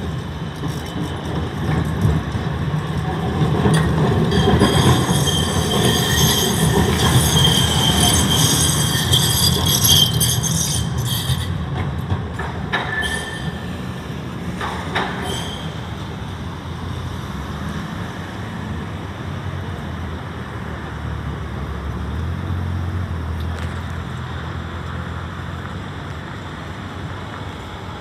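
Steel tram wheels squealing against the rails as a Melbourne low-floor Combino tram passes: a loud, high-pitched screech of several tones from about 4 s to 11 s, over the tram's low running rumble. A few sharp clicks follow, then the rumble and street traffic carry on.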